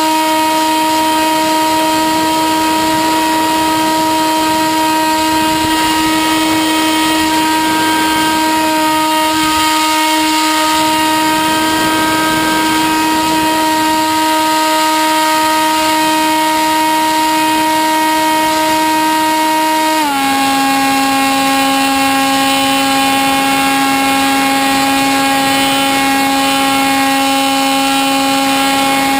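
Electric motor and propeller of a Sky Surfer RC foam plane, heard from its onboard camera: a steady whine over rushing wind, stepping down to a lower steady pitch about two-thirds of the way through as the throttle is eased.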